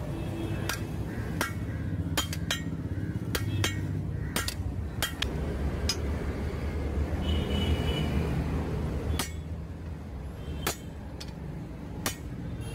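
Hand hammer striking red-hot leaf-spring steel on an anvil: sharp, irregular blows about one every 0.7 seconds for the first six seconds, a pause, then a few more blows near the end, over a steady low hum.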